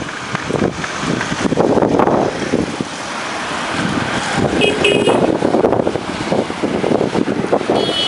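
Road traffic crossing a bridge: a continuous rumbling wash of passing cars and trucks. Two short, high horn beeps sound about four and a half seconds in and again near the end.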